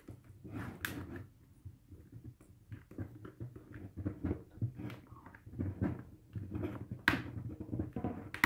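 Hands working a stiff chin-strap snap onto a plastic football helmet shell: scattered small clicks, taps and rubbing, with sharper clicks about a second in and twice near the end.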